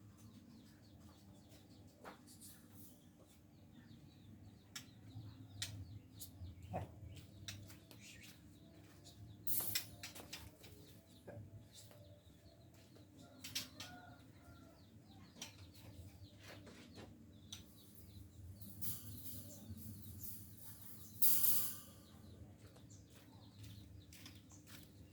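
White-rumped shama fluttering about in a steel-mesh aviary: repeated short wing-flap rushes and sharp clicks as it lands on perches and wire, with a few brief chirps.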